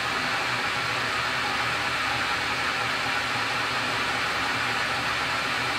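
Tormach 15L slant-bed CNC lathe running with its spindle turning at about 300 RPM: a steady, even whirring hiss.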